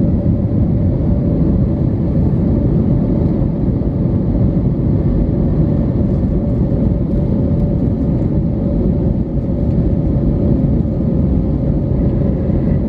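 Cabin noise inside a Lufthansa Airbus A320neo climbing after takeoff: the steady low rumble of its Pratt & Whitney geared turbofan engines and the airflow over the fuselage, with a steady drone tone over it.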